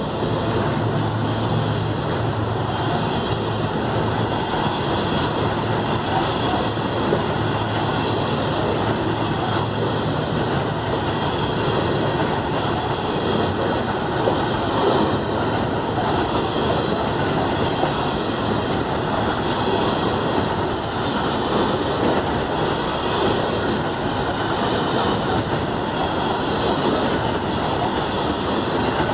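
A freight train of steel ZBKH covered hopper wagons rolling past, with a steady rumble of wheels on the rails.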